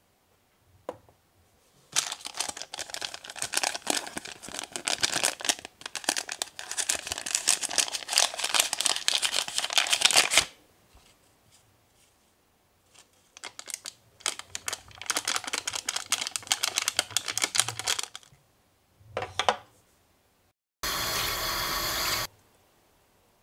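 Crinkling and tearing of a small paper-and-plastic powder packet as it is handled and opened, dense crackles for several seconds, then a second stretch of crinkling. Near the end a steady hiss lasts about a second and a half and stops suddenly.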